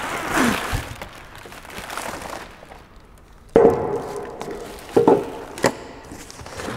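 Plastic packaging rustling as a bubble-wrapped exhaust section is handled, then three sharp knocks with a short ring as the part and its cardboard-tube end caps are set down on a concrete floor, the first knock the loudest.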